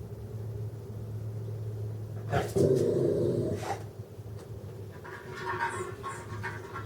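A dog gives one loud, drawn-out call lasting about a second and a half, followed by fainter higher calls, over a steady low hum of an idling car engine.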